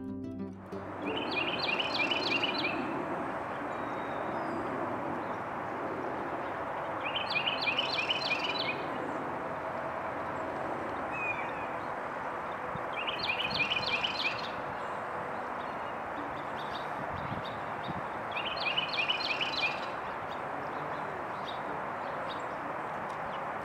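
Carolina wren singing: four short bursts of a quickly repeated phrase, about six seconds apart, over steady background noise.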